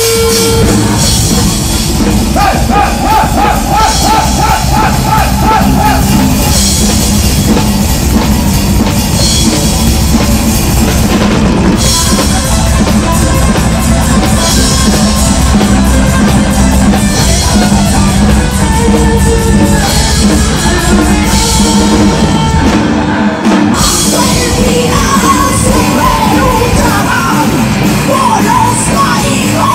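Heavy metal band playing loudly: electric guitar over drum kit and bass, with sung and yelled vocals. The band drops out briefly about three quarters of the way through, then comes back in.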